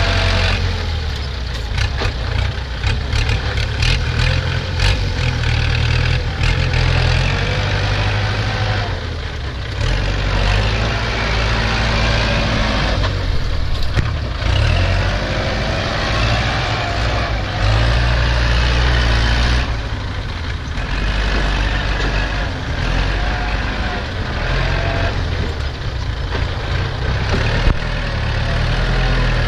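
Diesel engine of a Kubota tractor running and working close by, its note strengthening and easing, over the engine of a six-wheel dump truck tipping its load of soil. Loose dirt slides off the raised bed.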